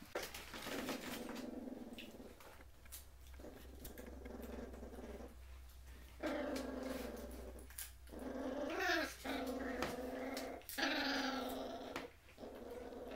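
Belgian Shepherd puppies growling as they play-fight, in long growls broken by short pauses. The pitch rises briefly about nine seconds in.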